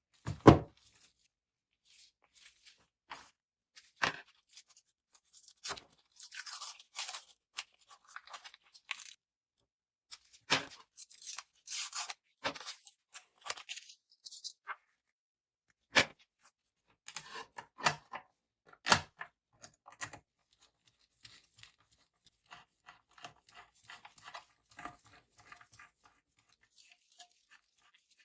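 Intermittent handling noise as the parts of a mini PC case are worked with: sharp clicks and knocks, the loudest about half a second in, with stretches of rustling and scraping between them.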